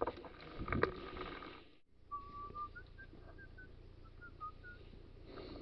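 A few handling knocks, then after a brief dropout a person faintly whistling a short string of notes that step up and down in pitch.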